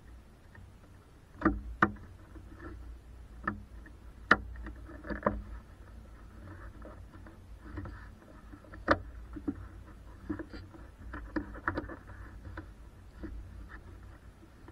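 Irregular sharp clicks and knocks of hard plastic as the windshield cowl cover is pressed and snapped back into place. The loudest come about a second and a half in, at about four seconds and at about nine seconds.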